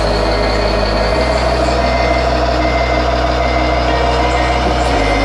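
RC model truck's electronic sound module playing a diesel truck engine running, with a truck reversing beeper sounding over it. The low engine hum shifts about a second in and shifts back near the end.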